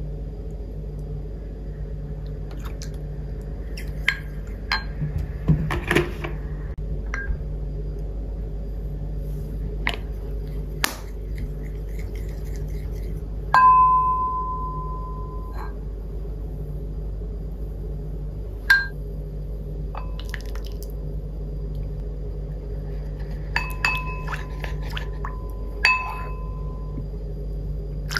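A wooden spoon knocking and scraping against glass and ceramic bowls as sauces are stirred, with scattered clinks, several of which leave the bowl ringing briefly. A steady low hum runs underneath.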